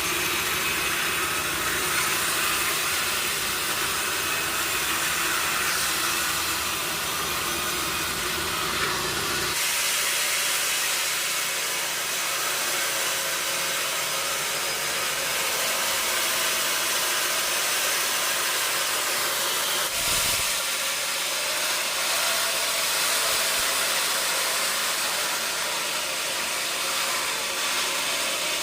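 Sawmill machinery running with a steady hissing noise. A lower rumble under it drops away abruptly about ten seconds in, and there is a brief low thump about twenty seconds in.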